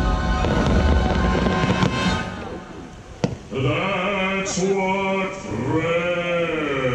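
Fireworks-show music with firework booms under it for the first two seconds, a single sharp firework crack a little past the three-second mark, then a voice singing long held notes that swoop up and down.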